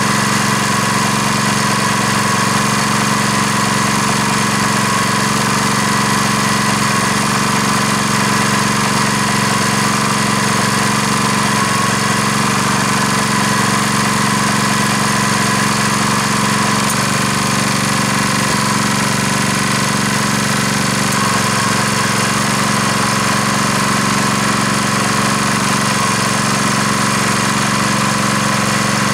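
Airlessco Sure Stripe 3650 line striper's small gasoline engine running steadily at an even speed, driving the airless pump while water is flushed through the system until it runs clean.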